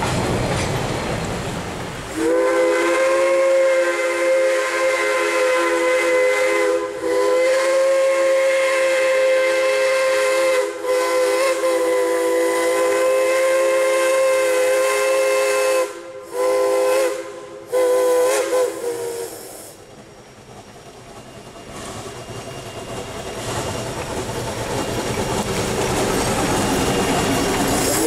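A Shay geared steam locomotive's chime whistle blows one long chord of several notes, broken off a few times for a moment and ending about two-thirds of the way through. Train rumble comes at the start, and a rising rumble and hiss of the approaching locomotive builds near the end before the whistle sounds again.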